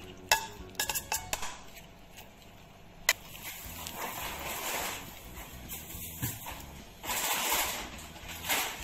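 Gloved hands handling raw fish steaks in plastic bowls while coating them in marinade: a few sharp knocks and clatters against the bowl in the first second or so and once more about three seconds in, then stretches of wet rubbing as the pieces are worked in the sauce.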